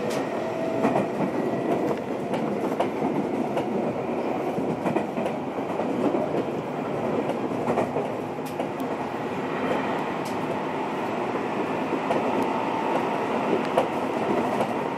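Seibu 20000 series electric train (motor car Moha 20804) running at speed, heard from inside the car: a steady wheel-on-rail rolling noise with scattered rail-joint clicks.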